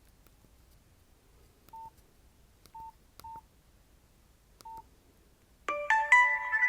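Nokia C2-01 mobile phone giving four short, same-pitched keypad beeps with key clicks, then, about five and a half seconds in, starting to play a loud polyphonic ringtone, several notes ringing on together.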